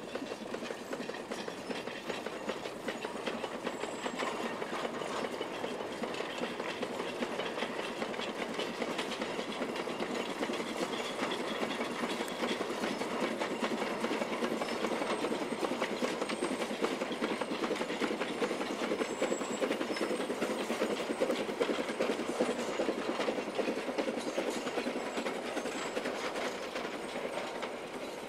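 C2-class 0-8-0 narrow-gauge steam locomotive chuffing as it hauls a freight train, with the wagons' wheels clattering over the rails. The sound grows louder through the middle and eases a little near the end.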